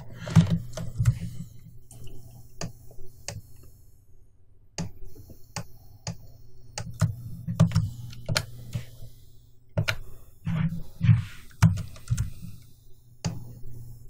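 Computer keyboard and mouse in use: irregular sharp key and button clicks in short clusters, with dull low knocks on the desk, and a pause about four seconds in.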